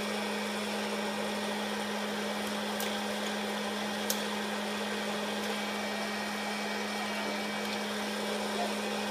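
Electric hot-air popcorn popper running, its fan motor giving a steady hum and blowing air. Two brief clicks come about three and four seconds in.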